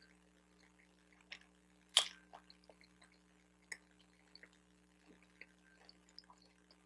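Faint, wet chewing and mouth clicks from close-miked eating of a bacon, egg and Swiss cheese everything bagel sandwich, with one sharp smack about two seconds in.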